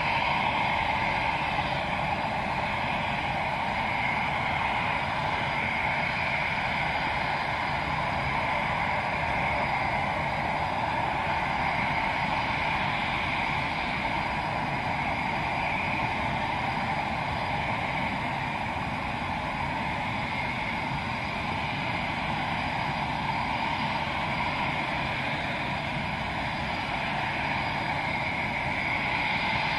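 Eurofighter Typhoon's twin Eurojet EJ200 turbofans idling on the ground, a steady jet whine and rush that holds level throughout.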